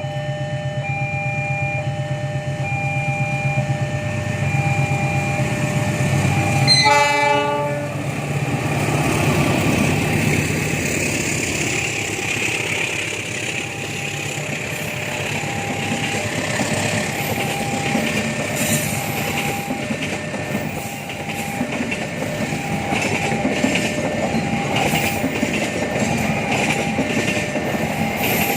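A train horn sounds one short blast about seven seconds in, then the train passes with a steady rumble and wheels clacking over the rail joints. Electronic beeping repeats in a steady on-off pattern throughout.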